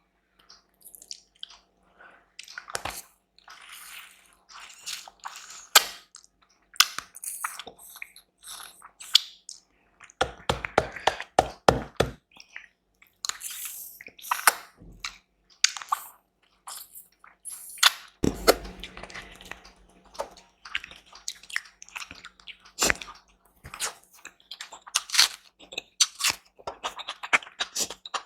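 Close-miked eating sounds: irregular chewing and biting clicks, with a quick run of about eight strokes near the middle.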